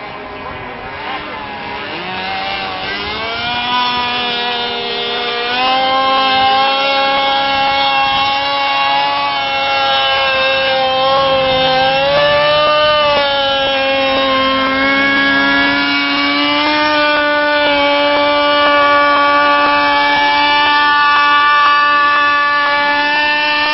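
Radio-controlled model aircraft's engine and propeller running. The pitch climbs over the first few seconds, dips and wavers in the middle as the plane flies by, then holds steady near the end.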